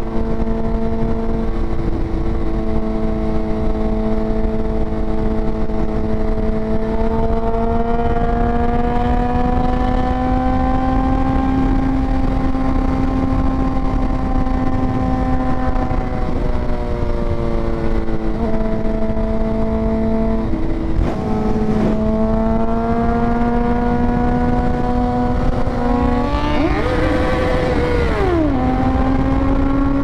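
Sportbike engine running at a steady cruise, its pitch drifting slowly up and down, over wind rushing on the microphone. Near the end an engine's pitch climbs steeply and then drops away sharply.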